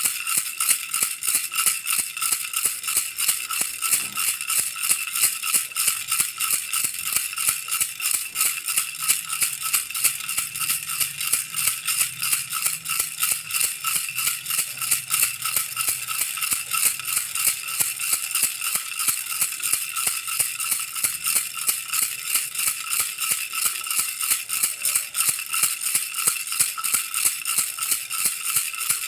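Baby rattle shaken steadily, a fast, even rhythm of about three shakes a second with a bright, ringing rattle.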